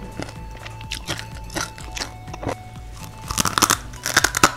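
Crunchy Lidi Si Umang mie lidi stick snacks being bitten and chewed: scattered crisp crunches, then a dense run of loud crunches in the last second and a half as a mouthful is bitten off the bundle.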